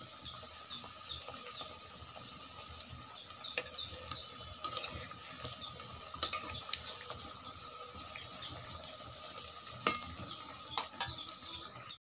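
Nimki dough pieces deep-frying in oil in a metal wok: a steady sizzle with small pops. A metal spatula scrapes and knocks against the wok now and then, loudest about ten seconds in.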